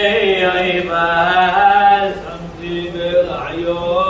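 Male chanting of a kinah, a Hebrew lament, to its Moroccan melody: an unaccompanied, slow, wavering line with long held notes.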